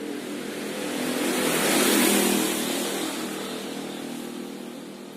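A motor vehicle passing by, its noise swelling to a peak about two seconds in and fading away, over a steady low engine hum.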